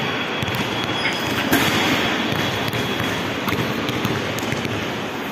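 Steady hubbub of a busy shopping-mall atrium echoing in the large hall, with a few faint knocks.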